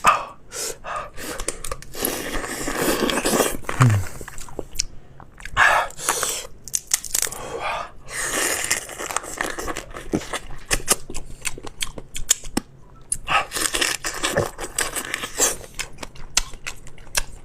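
Cooked crab being broken apart by hand and eaten: irregular cracking and tearing of the shell, with crunching and chewing.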